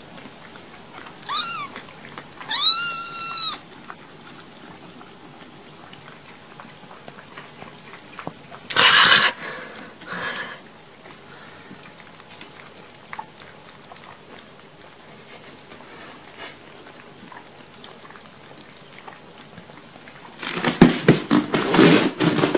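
Kittens meowing: a short high meow about a second in, then a longer one right after. A couple of brief noisy sounds follow later, and a louder, fluttering, noisy stretch comes near the end.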